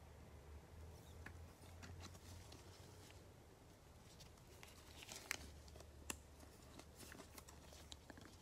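Faint clicks and rustles of trading cards and a hard plastic card holder being handled over a steady low hum, with two sharper clicks about five and six seconds in.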